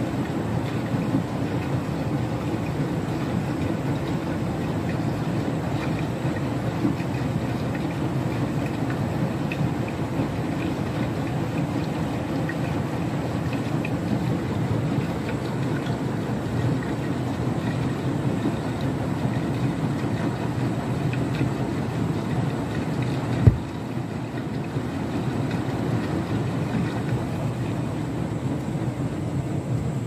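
Beko WTK104121W front-loading washing machine running a wash, its drum turning through soapy water with a steady churning and sloshing. A single sharp thump sounds about three-quarters of the way through.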